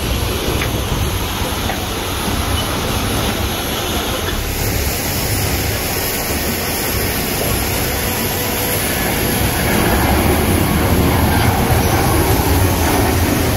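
Jet airliner noise: an Airbus A330 taking off at full thrust, its engines a steady rumbling roar that grows louder about ten seconds in as it climbs away.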